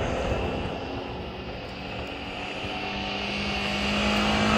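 Off-road 4x4's engine running under load on a muddy climb, its note rising slowly and getting louder over the last second or two.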